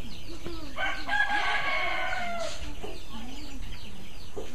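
A rooster crows once, starting about a second in and ending with a falling tail, over chickens clucking softly.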